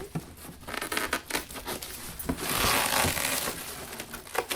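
Packaging on a shipping box being handled and pulled at: crinkling, crackling and rustling with many small clicks, and a louder, longer stretch of rustling about halfway through.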